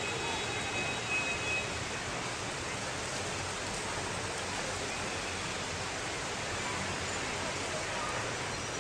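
Heavy rain falling, a steady even hiss. A few faint, thin high tones fade out in the first two seconds.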